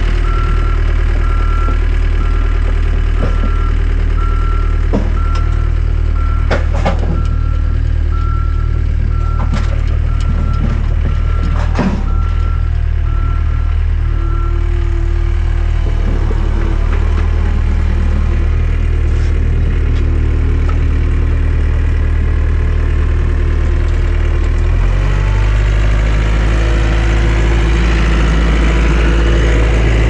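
Heavy construction machine engine running, with a backup alarm beeping steadily through the first half and a few sharp knocks in between. Near the end the engine speeds up and gets louder.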